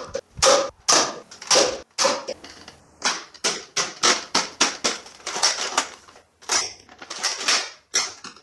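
A toy foam-dart blaster's plastic mechanism clacking in a quick, regular run of short sharp strokes, about two to three a second, with a short break a little after the middle.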